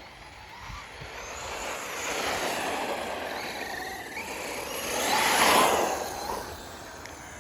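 Arrma Fireteam 6S RC car driving, its brushless motor and tyres swelling as it comes near twice, loudest about five and a half seconds in. The LiPo battery is nearly spent.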